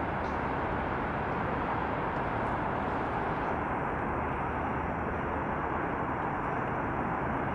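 Steady hum of distant city traffic, an even noise without changes.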